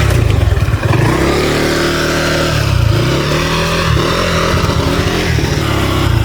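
Motor scooter engine running and being revved, its pitch dipping and rising a few times.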